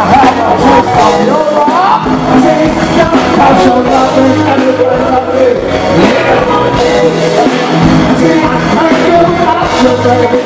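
Live go-go band playing, with a male lead and a female singer singing over the band into microphones.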